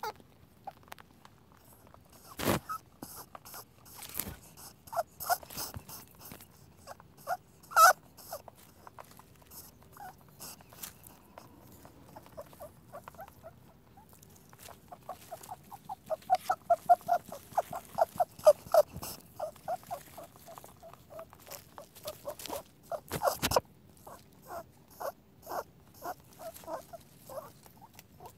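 Rabbit noises: runs of short squeaky pulses, several a second, broken by a few louder sharp clicks.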